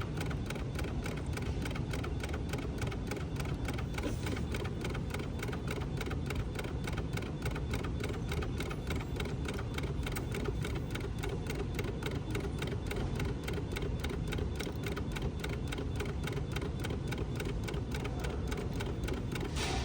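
A machine running with an even, rapid ticking, about four to five ticks a second, over a steady low rumble.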